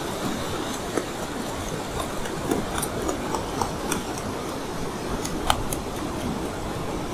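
Shallow surf washing steadily over sand, with a handful of short sharp ticks and slaps, the loudest about five and a half seconds in, as a hooked stingray thrashes in the thin water.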